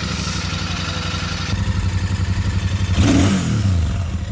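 Royal Enfield Super Meteor 650's 648cc parallel-twin engine idling just after being started, with one throttle blip about three seconds in that rises and drops back to idle.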